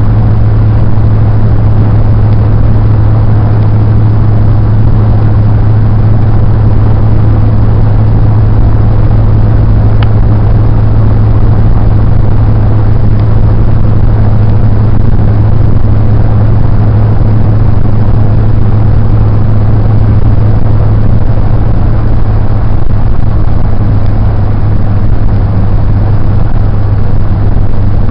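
Steady, loud road and engine noise heard inside a moving car, with a strong low drone and no change in speed.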